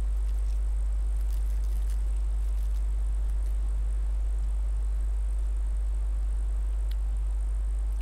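A steady, very deep low rumble, with a few faint scattered clicks over it.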